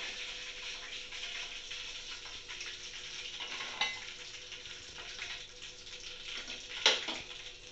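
Chicken pieces deep-frying in hot oil with a steady sizzle. The pieces have browned and are being lifted out with a metal slotted spoon, which clinks twice against the pan and the steel bowl; the louder clink comes near the end.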